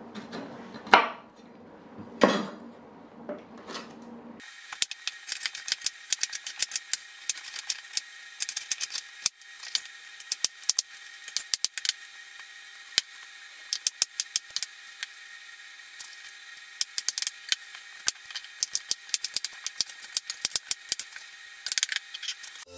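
Knife chopping fruit on a wooden cutting board: a run of sharp, irregular taps and knocks of the blade against the board. About four seconds in, the sound turns thin and high, and the taps come thick and fast.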